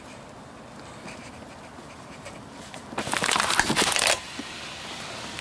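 Plastic bottle crackling and crunching for about a second as a rising power car window squeezes it against the door frame, then cutting off suddenly. The glass cracks the bottle and its pinch protection sends it straight back down.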